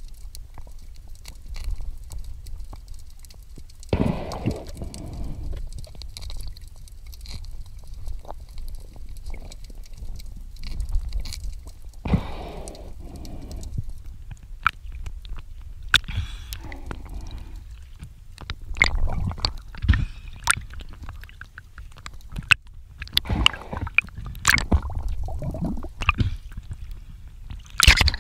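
Water sloshing and gurgling around a camera held underwater, over a low rumble, with scattered clicks and irregular swells of swishing noise. A louder burst of water noise comes near the end.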